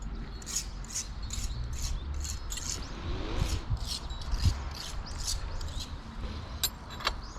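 Rhythmic scraping strokes, about two or three a second, with one dull thump about halfway through.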